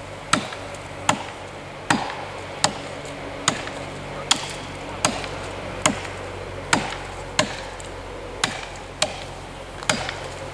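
Two axes chopping into the trunk of a large sycamore tree, cutting the felling notch. The two choppers take turns, making about fourteen sharp chops at a steady pace of a little more than one a second.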